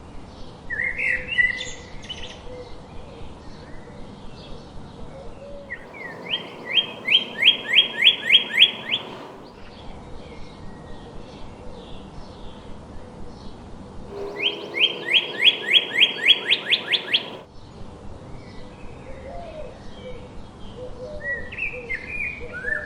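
Songbirds singing: twice a bird sings a loud run of about a dozen repeated slurred whistles, about three or four a second, each run lasting about three seconds. Fainter chirps from other birds continue around the runs, with soft low calls near the end.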